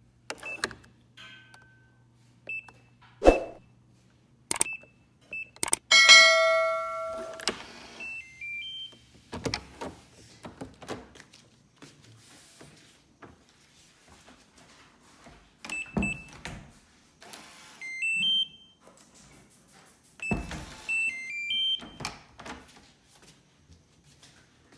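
A string of door sound effects: sharp latch clicks and knocks, short high electronic beeps and quick stepped runs of beeps, a ringing chime about six seconds in, and several longer noisy creaks or sweeps of a door moving.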